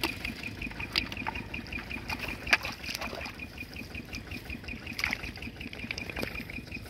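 Hands sloshing and splashing in shallow muddy paddy water while feeling through the mud for crabs, with a few sharper splashes: one about a second in, one near the middle and one near the end. Behind it a steady high-pitched ticking repeats several times a second.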